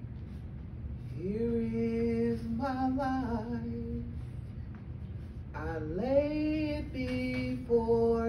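A woman singing a slow hymn into a hand-held microphone: two long, drawn-out phrases, each sliding up into a held note, the second starting about halfway through.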